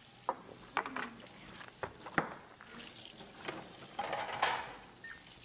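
Water running from a kitchen tap, a steady hiss, with several light clicks and clinks scattered through it.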